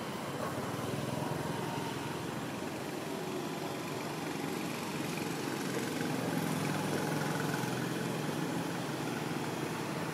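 An engine running steadily, its low drone growing a little louder about six seconds in.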